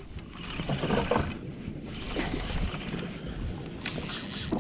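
Open-water ambience aboard a small fishing boat: steady wind and water noise against the hull, with faint voices in the distance.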